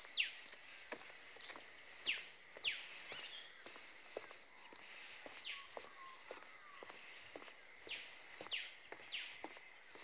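Dusk bush chorus: several short calls that sweep downward in pitch, repeated every second or so, over a steady high insect drone with brief high chirps. Faint footsteps on a path run underneath.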